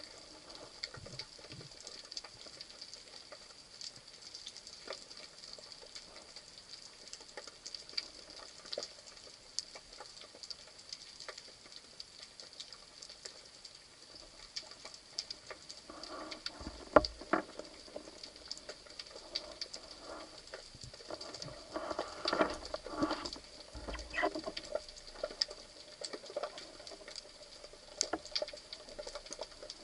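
Underwater ambience over a rocky reef: a steady crackle of dense fine clicks, with louder, uneven pulsing sounds from about 16 seconds in.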